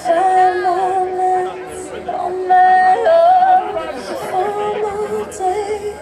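Music with a high singing voice holding long notes and sliding between pitches.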